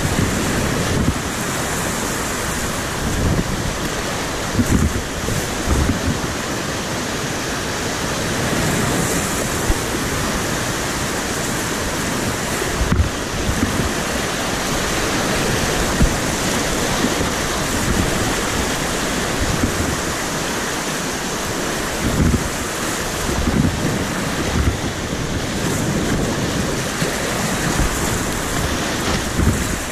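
Whitewater rapids rushing, heard close to the water surface, a steady loud roar of river water over rocks. Irregular low thumps of buffeting on the microphone come and go throughout.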